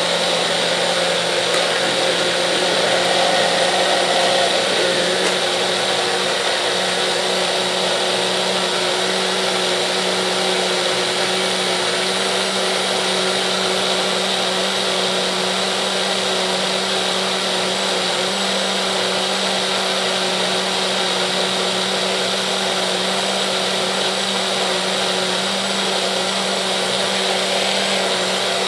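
Baby Bullet blender running steadily, locked on, puréeing steamed pears with a little water. It makes an even motor hum.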